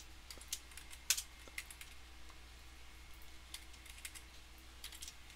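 Faint, scattered keystrokes and clicks on a computer keyboard and mouse while spreadsheet formulas are typed in.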